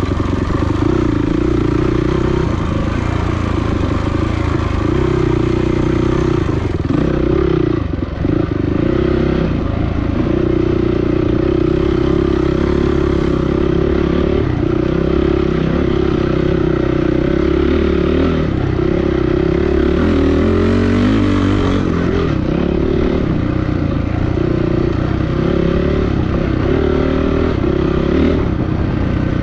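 Dirt bike engine running hard under throttle, revs held mostly steady, with a short dip about eight seconds in and the pitch wavering up and down around twenty seconds in.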